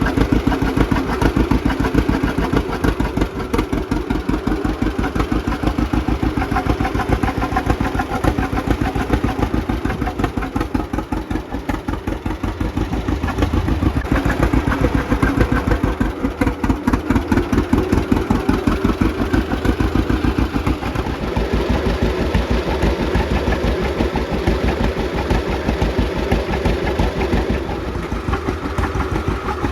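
1940 John Deere A tractor's two-cylinder engine running with a steady, rapid pulsing exhaust beat, easing off slightly about a third of the way in before picking back up.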